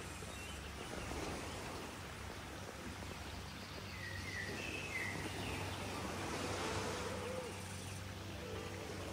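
Steady outdoor ambient noise with a few short bird chirps about four to five seconds in.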